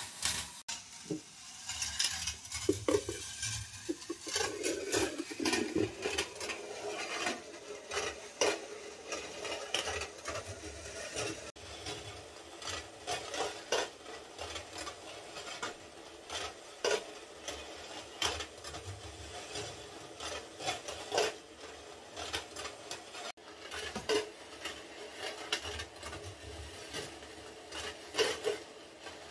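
10 mm steel balls rolling along the copper-wire tracks of a marble machine: a continuous metallic rolling rattle broken by frequent, irregular sharp clicks and clinks as the balls drop, land and knock against the wire and one another.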